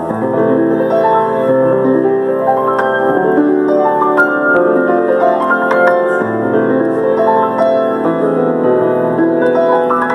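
Solo piano playing: a continuous run of struck chords and melody notes, each ringing on.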